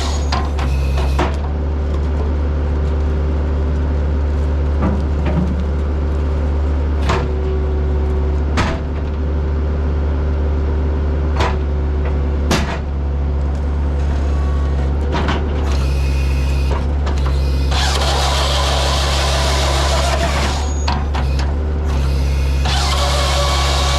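Skid steer's diesel engine running steadily under load while it drives a Halverson 140B firewood processor. A few sharp knocks come through about 7, 9, 11 and 12 seconds in. Loud hissing noise rises from about 18 to 21 seconds and again near the end.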